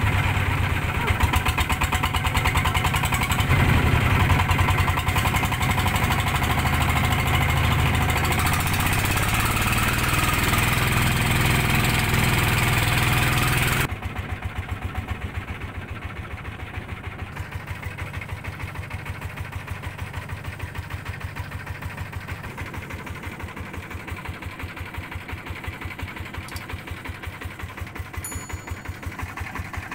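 A river boat's engine running steadily with a rapid, even beat. About halfway through it suddenly becomes quieter.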